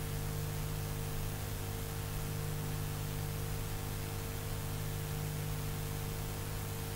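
Steady hiss and electrical mains hum from an open communications line between range-control callouts, with no voice on it.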